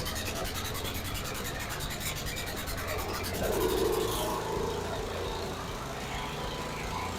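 Lawn mower's swapped-in engine running while its starter, which has failed to disengage, rubs against the flywheel with a fast, even rasp. The rubbing stops about four seconds in and the engine keeps running.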